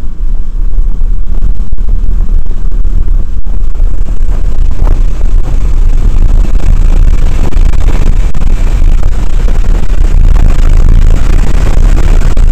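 In-cabin sound of a Porsche 997 Turbo at speed on a wet track: the twin-turbo flat-six engine's drone mixed with tyre and road noise, recorded so loud that it is overloaded and distorted. A hiss grows stronger in the second half.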